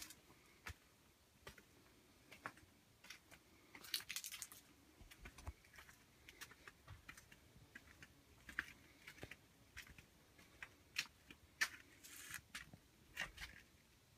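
Quiet footsteps on a flagstone path: irregular soft taps and scuffs roughly every half second to a second, with a short gritty scrape about four seconds in.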